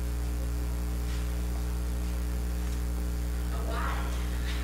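Steady electrical mains hum with its overtones on the recording's audio, and a brief faint voice about three and a half seconds in.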